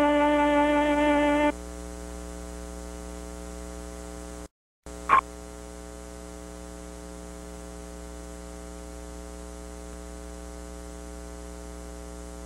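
A held musical note ends about a second and a half in, leaving a steady electrical mains hum. The hum drops out for a moment around four and a half seconds in and comes back with a short, loud blip.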